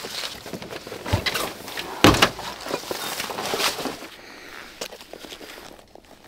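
Outdoor gear being handled in a car: rustling of backpack fabric and straps with several knocks, and one loud heavy thump about two seconds in.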